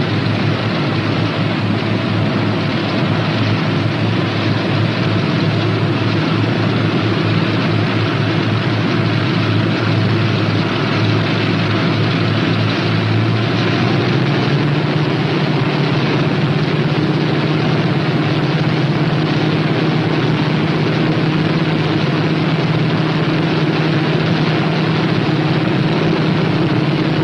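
A P-61 Black Widow's twin Pratt & Whitney R-2800 radial engines running at low power while taxiing: a steady propeller drone over a hiss. About halfway through, the engine note steps up in pitch.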